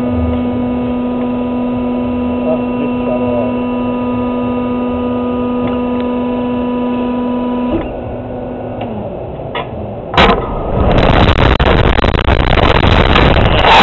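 Reverse bungee (slingshot) ride: a steady machine hum while the two-seat capsule is held on the ground, stopping about eight seconds in. About two seconds later comes a sharp clunk as the capsule is released, then loud rushing wind on the microphone as it is flung upward.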